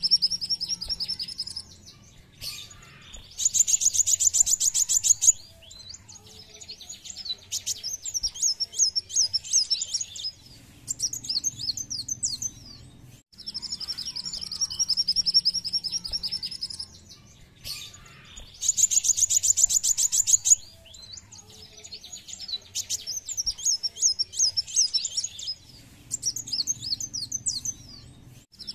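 Kolibri wulung (Van Hasselt's sunbird) song used as a lure track to set other birds singing. Each round starts with a steady high buzzy trill, then a burst of very rapid sharp ticks, then runs of varied twittering chirps. The whole sequence plays twice, repeating about every fifteen seconds.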